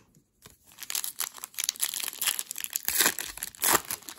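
Foil wrapper of a hockey card pack crinkled and torn open by hand: a dense run of crackling from about a second in, with a couple of sharper, louder crackles near the end.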